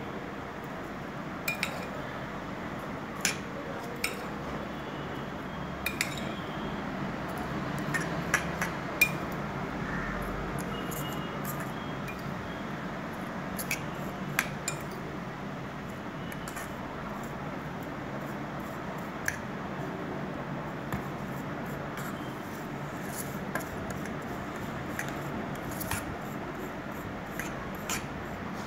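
A metal spoon clinking and scraping against a stainless steel bowl as a layer of milk-soaked vermicelli is spread and pressed flat, in scattered irregular clicks over a steady background hiss.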